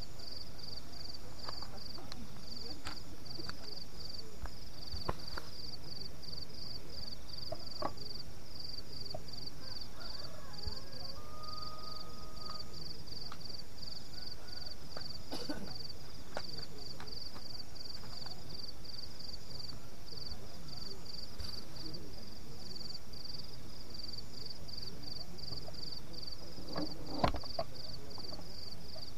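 An insect chirping steadily at night, an even high pulsed chirp about three times a second, over scattered light clicks and knocks of camping gear being handled, with one louder knock near the end.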